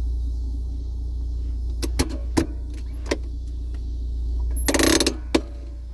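Fiat Uno handbrake lever being worked: a few separate clicks about two seconds in, then a quick rattling burst of ratchet clicks near the end as the lever is pulled up, and one last click, over a steady low hum.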